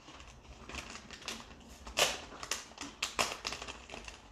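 Small plastic zip bag crinkling as hands dig into it, with irregular sharp clicks of small parts inside. The loudest click comes about two seconds in.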